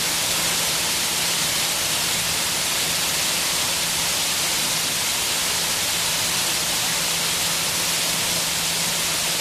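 Water-curtain fountain of many thin falling streams, splashing down in a steady, even hiss. A faint steady low hum runs underneath.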